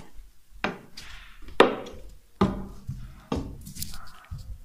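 Four separate knocks or bumps, roughly a second apart, with fainter shuffling sounds between them.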